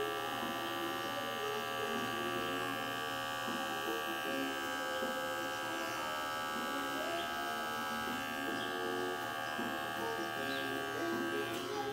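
Wahl Magic Clip cordless hair clipper running with a steady hum as it trims down mustache hairs.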